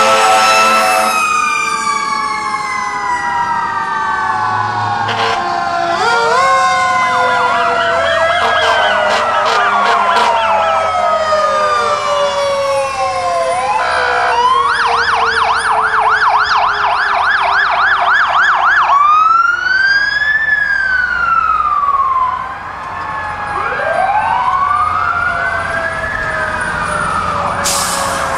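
Several fire truck sirens sounding together as the trucks pass: a steady horn blast that cuts off about a second in, a siren slowly winding down in pitch, and electronic sirens wailing up and down, with a fast yelp for a few seconds about halfway through.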